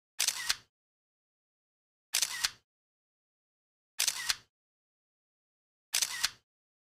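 The same short editing sound effect, about half a second long with a few sharp clicks in it, played four times about every two seconds, with dead silence between.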